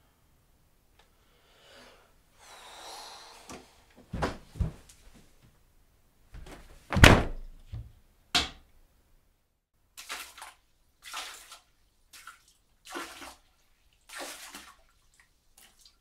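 A string of knocks and thuds, the loudest a heavy thump about seven seconds in, followed by half a dozen short swishing noises.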